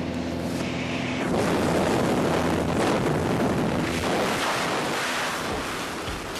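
Rushing wind buffeting the microphone at the open door of a small skydiving aircraft, a dense roar that swells about a second in.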